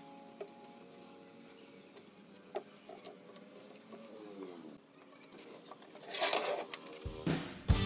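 Background music fading out, then faint scratching and a few light clicks of a wooden folding chair being rubbed and handled. Loud music starts again near the end.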